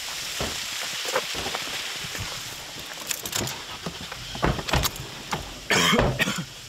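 Rush of a roadside waterfall that fades out, then scattered clicks and knocks from inside a Toyota pickup truck's cab, with one loud rustling burst near the end.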